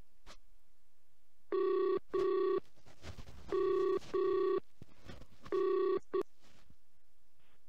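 Telephone ringback tone of an outgoing call to a UK number, heard through a web-calling app: three British-style double rings, two short buzzes per ring, about two seconds apart. The last ring is cut short as the call is answered.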